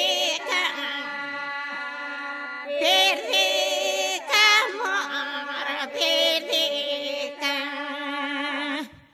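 A group of women singing a folk song a cappella: a low note held steadily beneath a wavering, ornamented upper voice. The singing cuts off abruptly just before the end.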